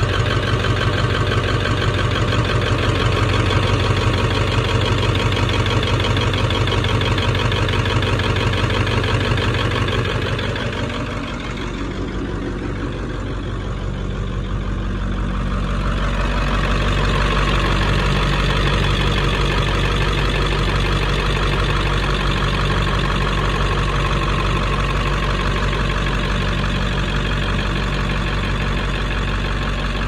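International 3800 school bus diesel engine idling steadily with a light diesel clatter, heard from the open engine bay. It dips briefly in loudness about a third of the way through.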